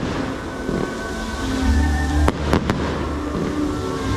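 Fireworks going off over music: a sharp bang a little over two seconds in, then two quicker cracks right after it.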